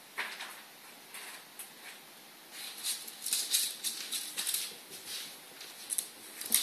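Irregular light patter and scuffling of a ferret's claws on a wooden floor as it scurries about, sparse at first and getting busier about two and a half seconds in.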